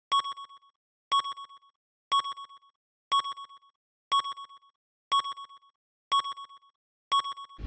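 Countdown timer sound effect: a short electronic beep once a second, eight in all, each trailed by a few fading echoes.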